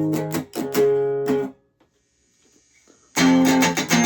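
Stratocaster-style electric guitar on the bridge pickup, strummed through an amp: a burst of strummed chords, a pause of about a second and a half, then strumming again. The second burst is played with the tone knob cranked for a brighter, Telecaster-like 'pop'.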